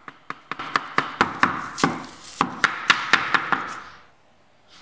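Hammer tapping a wooden tapping block against the edge of a snap-together laminate floor plank, a fast run of knocks about four or five a second, driving the plank under a door frame to lock its joint with the plank beside it. The tapping stops about four seconds in.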